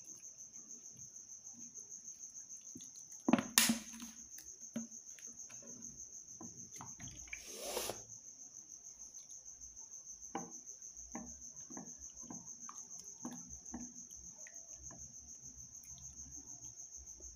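Wooden spoon stirring liquid in a glass bowl, with light scattered knocks and one sharper knock about three and a half seconds in, and a brief rush of noise near the eight-second mark. Behind it a cricket chirps steadily, a high pulsing trill about four times a second.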